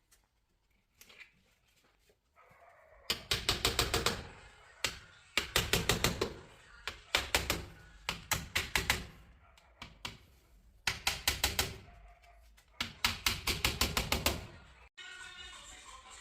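Rapid knocking in short runs of about ten knocks a second, repeated half a dozen times with pauses between, on something newly installed to show how it sounds when it is fitted well.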